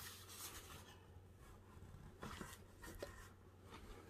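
Faint scraping and rubbing of cardboard, a few short strokes, as a black framed coin display is slid into its box sleeve.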